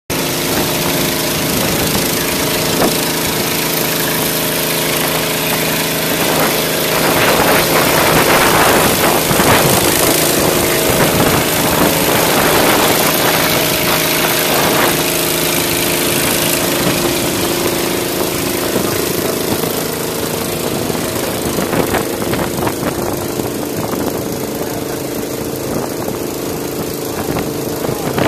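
An engine running at a steady pitch, a constant hum under a noisy rush.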